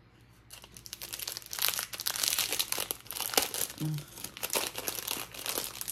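Packaging crinkling and rustling in the hands as a pack of stickers is worked open: dense, irregular crackling that starts about half a second in and goes on in uneven bursts.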